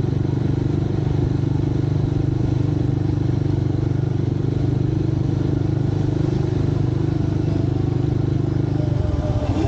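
Motorcycle engine running at a steady pace, heard from the rider's position; the engine note drops near the end.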